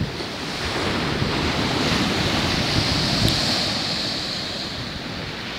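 Sea surf breaking and washing up a sandy beach, the hiss of the wash swelling in the middle and easing near the end, with wind buffeting the microphone.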